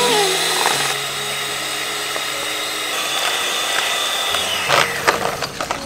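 Electric hand mixer running with a steady motor whine, its beaters whipping cream in a steel bowl. The pitch steps slightly about a second in and again near the end, followed by a few sharp clicks.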